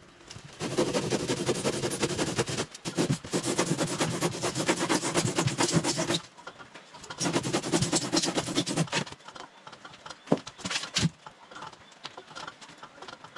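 Handsaw cutting through a block of white expanded polystyrene foam: three spells of quick back-and-forth strokes, then a few light scattered clicks near the end.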